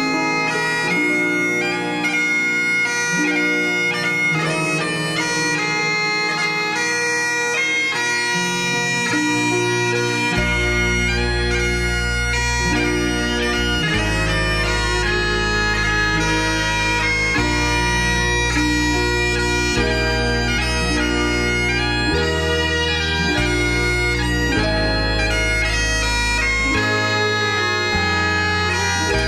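Recorded bagpipe music: a piper playing a tune over steady drones, with a low bass accompaniment joining about ten seconds in.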